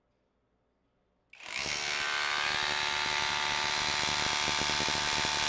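Bauer 2144C-B brushless cordless SDS rotary hammer hammering a domed bit into a steel plate at full power. Its rapid blows start suddenly about a second in and run on steadily.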